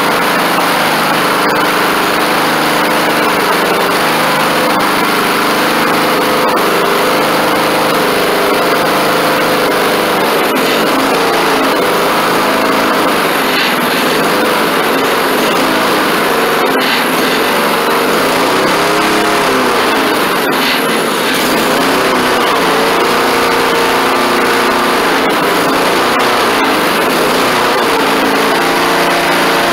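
Honda GCV160 single-cylinder overhead-cam engine on a push mower running steadily, its speed rising and falling several times as the governor holds it in check. The governor has just been readjusted to cure overrevving.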